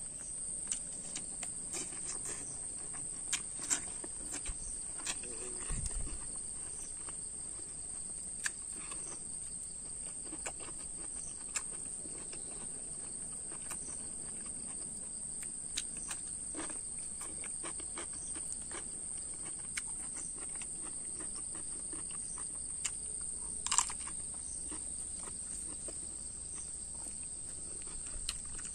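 Steady high-pitched drone of insects, crickets or cicadas, with scattered light clicks and rustles from eating rice by hand off a banana leaf and chewing; one louder click a little before the end.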